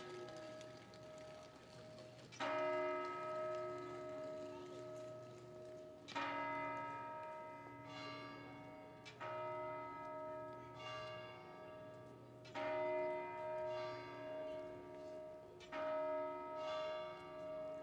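The large bell atop St Mark's Clock Tower, struck by the hammers of its two bronze figures to toll the hour of eight. It gives single strokes about every three seconds, and each stroke rings on with a long humming decay into the next.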